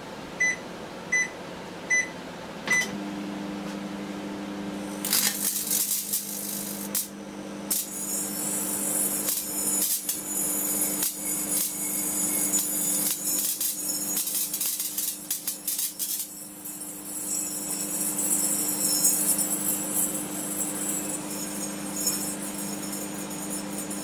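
Sharp microwave oven keypad beeping four times, then the oven starting with a steady hum. From about five seconds in, the sealed beam headlight inside crackles with plasma as the microwaves light it up, densest until about two-thirds through, then lighter.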